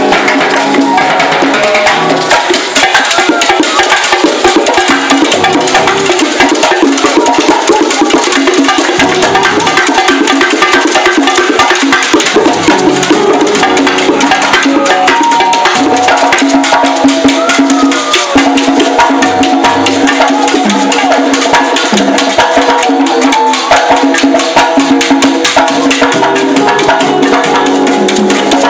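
Loud live Latin band music driven by timbales and hand percussion, with a dense, steady run of sharp strikes over sustained pitched instruments and an upright bass.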